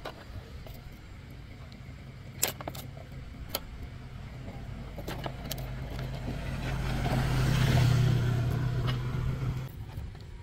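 Small motorbike engine running at a steady pitch, growing louder to a peak about eight seconds in and then cutting off abruptly near the end, with a few sharp clicks in the first few seconds.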